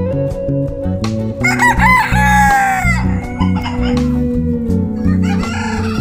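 Silver laced Polish rooster crowing once, two short notes then a long, slightly falling one, with another call starting near the end. Background music with a steady bass line and guitar plays throughout.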